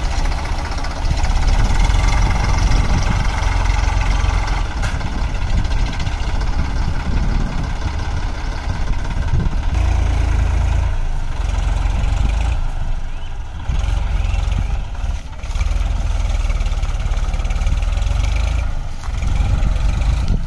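Diesel engines of the ACE and Eicher tractors running together, a steady heavy engine note that falls back briefly a few times in the second half.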